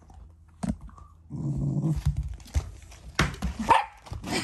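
Black Shiba Inu growling low over a contested item while it and a black Labrador tussle, a playful possessive growl rather than real anger. The growl starts after about a second, followed by a scuffle of sharp knocks and clicks.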